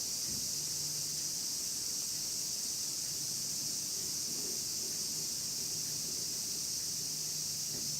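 Cicadas calling in a chorus, a steady, unbroken high-pitched drone.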